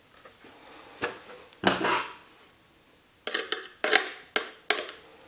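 Hard plastic and sheet-metal handling noises as a DVD drive is fitted into a PC case's drive bay: a scrape about a second in, then a run of sharp clicks and knocks over the last two seconds.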